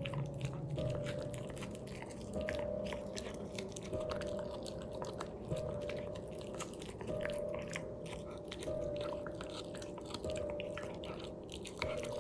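Corgi crunching and chewing a hard dog treat with quick, irregular crunches, over soft background music.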